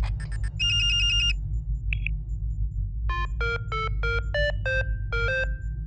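Synthesized computer beeps over a steady low cockpit hum: a fast electronic ringing in the first second or so, a single chirp about two seconds in, then a beeped tune of about nine notes from about three seconds in, as the cockpit terminal signals the New Year.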